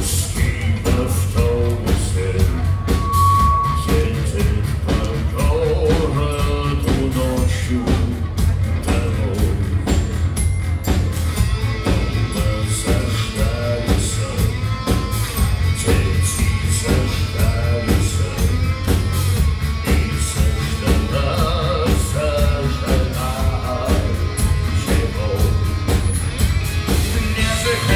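Live rock band playing: a man singing over electric guitar, bass guitar, drums and keyboards, with a steady drum beat and a heavy bass line.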